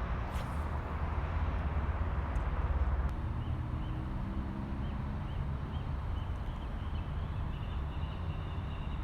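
Steady low outdoor rumble, heavier for the first few seconds, with a bird chirping a run of short high notes from a few seconds in.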